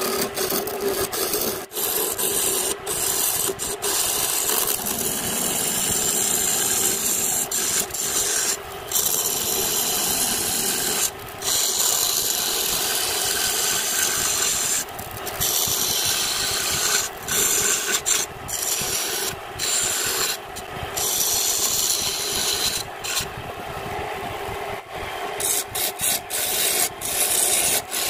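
Hand-held flat turning tool cutting into a bamboo blank spinning on a homemade wood lathe: a continuous hissing, scraping cut over the lathe's steady running hum. The cutting noise breaks off briefly several times as the tool leaves the wood.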